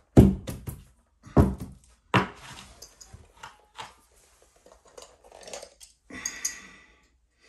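Carpet being tucked in at the baseboard with a carpet stair tool: three heavy thumps in the first two and a half seconds, then quieter scraping and clicks, and a short rustle near the end.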